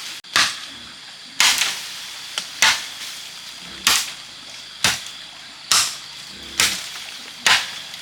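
Blade chopping bamboo: eight sharp strikes spaced about a second apart.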